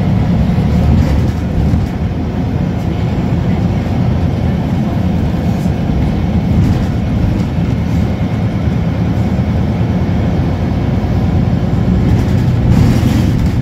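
Interior running noise of a Scania L94UB Wright Solar single-deck bus under way: a steady low hum from its five-cylinder diesel engine and drivetrain, mixed with road noise. Near the end there is a brief hissing burst.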